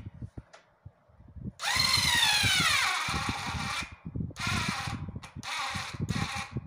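Cordless electric screwdriver driving a screw into a desk's metal frame. One run of about two seconds whose whine drops steadily in pitch, then a few short bursts as the screw is driven home.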